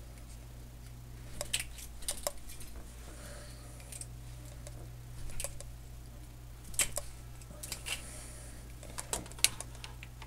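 Scattered light clicks and taps, about eight in ten seconds, from hands and test leads working at a TV's front control panel and touch pads, over a steady low hum.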